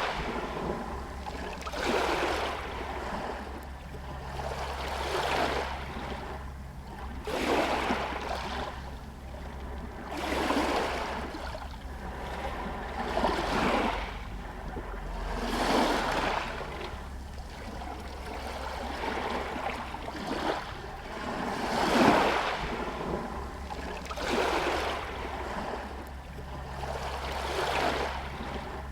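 Small sea waves lapping against a stone pier, each wash swelling and ebbing every two to three seconds, with a faint steady low hum underneath.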